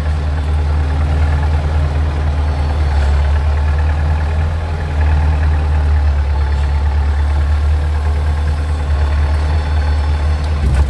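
Wheel loader's diesel engine running, heard from inside the cab, with a steady low hum. It picks up about five seconds in and stays louder while the bucket is lifted over a dump truck and tipped.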